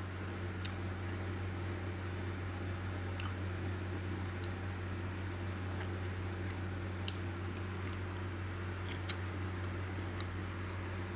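Steady low electrical or fan-like hum, with faint soft squishes and small scattered ticks as fingers tear apart tender grilled chicken.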